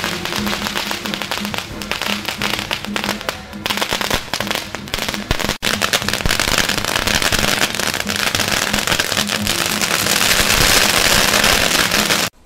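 Long strings of firecrackers going off in a dense, rapid crackle. There is a brief break about five and a half seconds in, and the sound cuts off just before the end.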